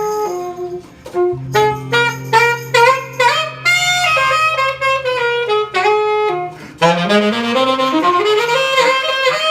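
Live band music: a saxophone plays a melody of short notes over a held low bass note, then a rising run near the end.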